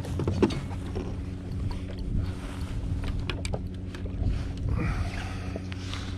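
Yamaha FXHO WaveRunner jetski engine idling steadily, with scattered sharp clicks and knocks from handling fishing tackle, strongest about half a second in.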